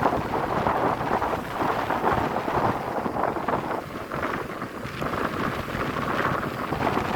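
Wind buffeting the microphone, a gusty rushing rumble that swells and falls unevenly.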